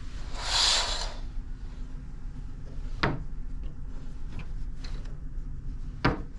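Fabric curtain being drawn across a cabin window, with a short swish of cloth and runners sliding along the rail about half a second in, followed by two sharp clicks about three seconds apart. A steady low hum runs underneath.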